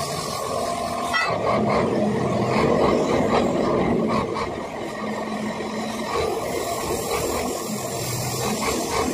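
Oxy-fuel cutting torch hissing steadily as it cuts through steel, the hiss growing louder about a second in.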